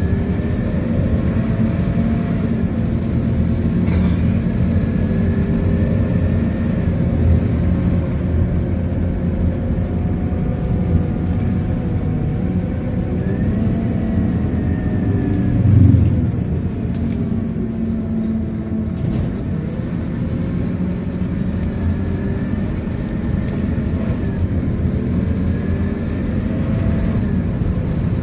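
Scania K230UB bus's nine-litre five-cylinder diesel engine and ZF gearbox running at speed, heard from inside the cabin along with road and tyre noise, the engine and gearbox note drifting slowly up and down. There is one louder low thump past the middle.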